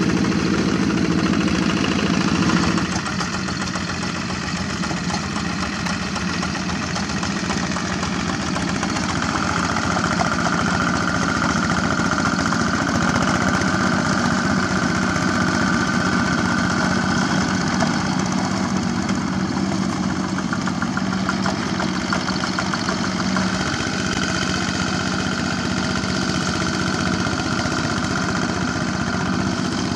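Single-cylinder diesel engine of a two-wheel walking tractor running steadily under load as it churns through paddy mud. The engine note shifts and drops slightly about three seconds in. A high steady whine comes in twice, once in the middle and once near the end.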